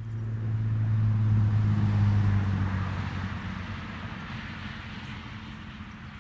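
A passing vehicle's engine: a low steady hum with a hiss over it, swelling to its loudest a second or two in and then slowly fading away.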